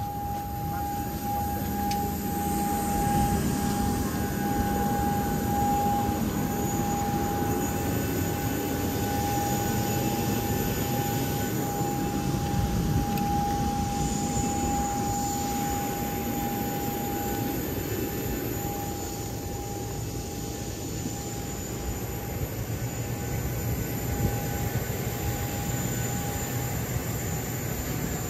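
Jet aircraft noise: a steady whine over a broad rumble, the whine fading somewhat after about eighteen seconds.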